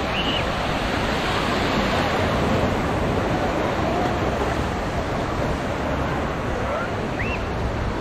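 Small waves breaking and washing up a sandy shore: a steady, even rush of surf.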